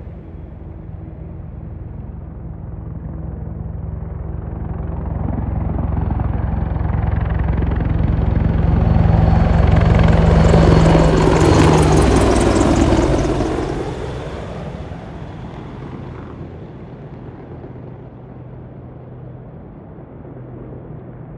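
Boeing AH-64E Apache helicopters flying over, their rotor and engine noise growing louder to a peak about ten seconds in, then dropping in pitch and fading away as they pass.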